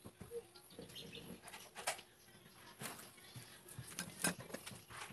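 Scattered rustles and small clicks of hands fastening a hoop earring, with two louder clicks about two and four seconds in. Faint bird chirps sound behind.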